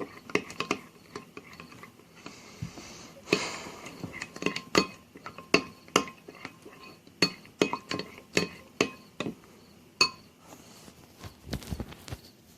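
A spoon stirring applesauce and mustard together in a dish, clinking against its sides over and over with short ringing taps, with some scraping a couple of seconds in.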